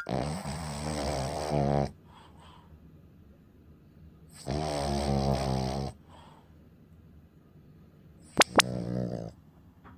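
Cavalier King Charles Spaniel snoring heavily, three long rasping breaths about four and a half seconds apart; the owner links the worsening snoring to the dog's weight. Two sharp clicks come in quick succession shortly before the third snore.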